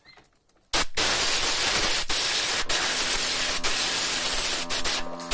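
Loud steady hiss like static, starting abruptly under a second in and broken by a few very short gaps.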